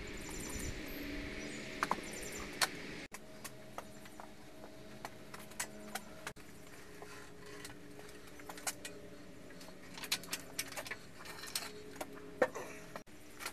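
Scattered clicks, clunks and rattles of a large red oak bowl blank being wheeled on a metal hand truck and handled into place at a wood lathe, over a faint steady hum.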